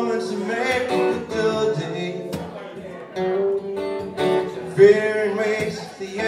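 Acoustic guitar strummed and picked in a live solo song, with a man's voice singing over it in a few phrases.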